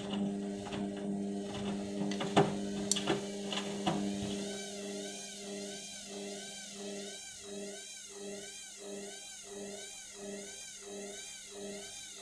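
Indesit washing machine struggling through its final spin with an unbalanced load: the motor hums steadily, and a few sharp knocks come from the drum between about two and four seconds in. After that the drum turns in a pulsing rhythm of about two beats a second with a wavering whine, as it fails to get up to spin speed.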